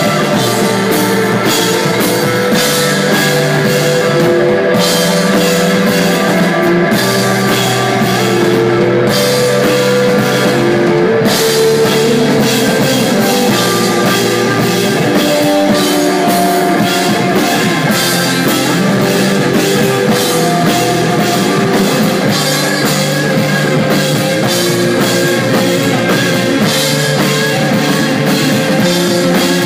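A desert-rock band playing live: a drum kit keeps a steady beat under sustained, overlapping guitar and bass lines. The cymbals drop out briefly twice in the first half.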